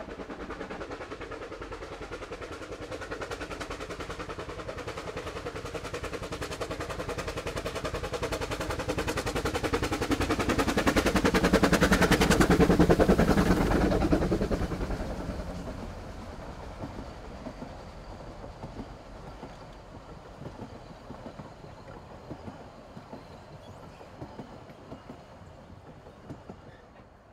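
Two narrow-gauge 2-6-2 steam tank locomotives double-heading, their rapid exhaust beats growing louder as they approach and pass about twelve to fourteen seconds in. Then the carriages roll by with sharp clicks of wheels over the rail joints, fading away.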